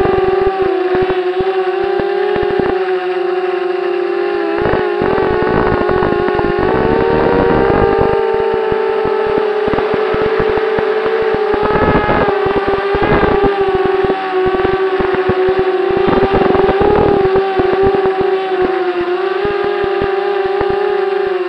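Propeller engine of the small aircraft carrying the camera, running at a steady high drone that wavers only slightly in pitch, with wind buffeting the microphone in gusts.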